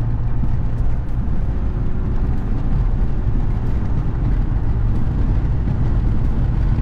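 Steady in-cab drone of a Ram 1500's 3.0-litre EcoDiesel V6 pulling in fourth gear at highway speed, mixed with road noise.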